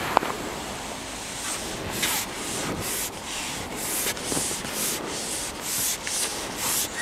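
Repeated rubbing or scraping strokes, about two a second, beginning about a second and a half in.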